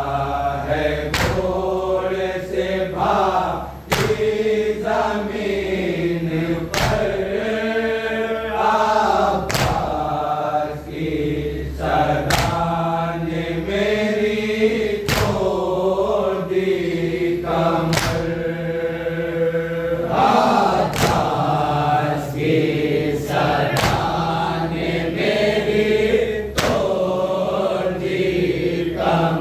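Men's voices chanting a noha, an Urdu mourning lament for Abbas, in a slow repeating melody, with a sharp slap every two to three seconds.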